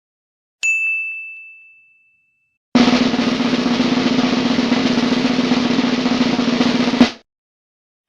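A single bright ding that rings and fades over about two seconds, then a snare drum roll lasting about four seconds that ends on one sharp hit.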